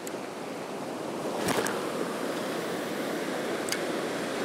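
Ocean surf breaking and washing in foam over a rounded-boulder shore, a steady rush that swells slightly after about a second. Two brief sharp clicks sound about a second and a half in and again near the end.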